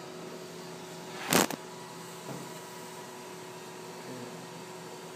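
Steady hum of a powered 3D printer's cooling fans, with a few thin steady tones. One short, loud knock or rustle cuts across it about a second and a half in.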